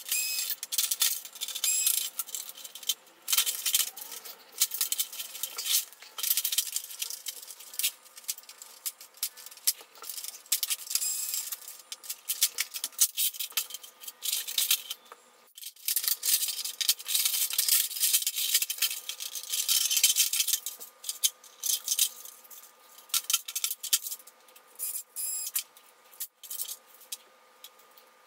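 Dense, fast clicking and rattling of plastic printer-scanner parts and metal hand tools being handled and pried apart, with one brief pause about midway.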